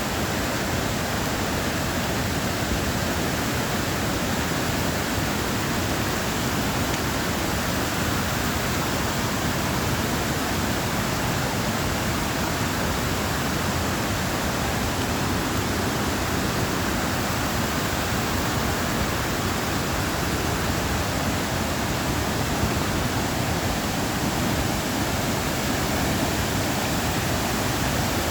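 Steady, even rushing noise that holds constant, with no rise and fall and no distinct events.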